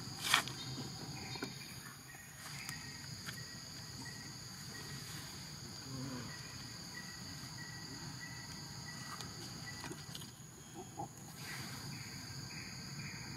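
Steady, high-pitched chorus of insects in the surrounding forest, with a single sharp click just after the start.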